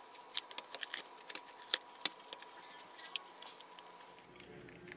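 Plastic opening pick prying a Samsung Galaxy A32 5G's back cover loose: an irregular run of sharp clicks and ticks as the cover's edge comes free, most of them in the first two seconds.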